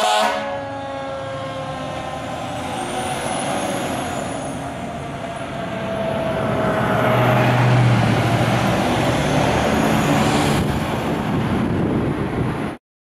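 A 2011 Pierce Arrow XT fire engine pulling away on an emergency call: its engine running under load, with a siren tone slowly falling in pitch over the first several seconds. The sound cuts off abruptly near the end.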